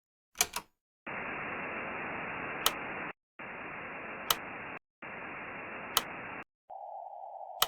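Radio-style static hiss in three separate bursts, each with a sharp click partway through, after two quick clicks at the start. About two-thirds of the way through, the hiss narrows to a thinner, lower band, with one more sharp click near the end.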